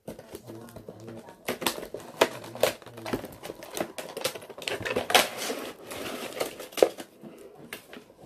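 Irregular clicks, taps and knocks of a cardboard box being handled and opened, its top flaps worked open. Near the end the plastic-packed contents are pulled out.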